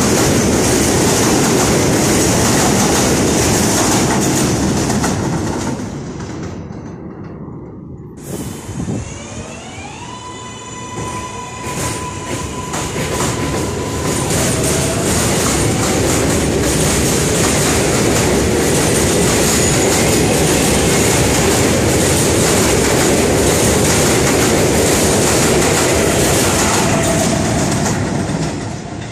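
New York subway trains of R143 cars running on an elevated track, steel wheels on rail making a loud, steady rumble and clatter. About a third of the way in the noise eases and a train's electric motors whine up in pitch, then hold a steady tone for a few seconds as it pulls away, before loud running-train noise builds again.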